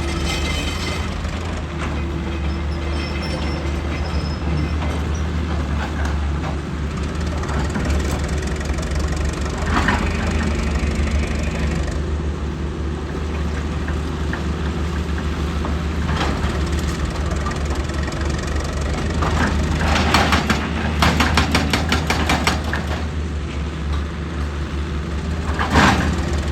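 Heavy diesel engine of an excavator running steadily with a low hum. A few short bursts of metallic clatter break in, the longest a rapid rattle about 20 seconds in.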